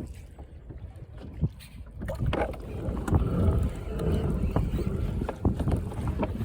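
Wind buffeting the microphone over water, with irregular knocks and splashes, growing louder about two seconds in.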